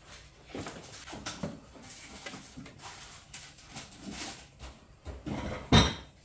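Two cats play-fighting on a hardwood floor and a toy truck: irregular scuffling, scratching and soft knocks, with one loud thump near the end.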